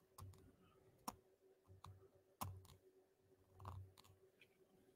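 Faint, irregular clicks from a computer keyboard, about half a dozen spread unevenly, some with a soft low thud, over a faint steady hum.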